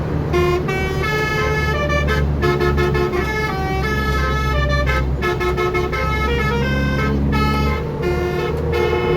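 Basuri roof-mounted musical air horn (telolet) playing a quick melody of short stepped notes, heard from inside the bus, over the steady low drone of the bus engine.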